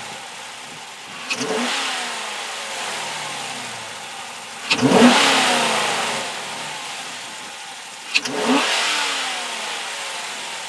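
2015 Dodge Challenger R/T's 5.7-litre Hemi V8 revved three times while standing. Each rev shoots up sharply and then falls slowly back to idle, and the middle one is the loudest.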